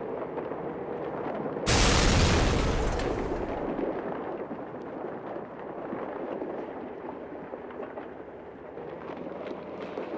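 A sudden loud explosion boom about two seconds in, fading over a couple of seconds into a lingering low rumble.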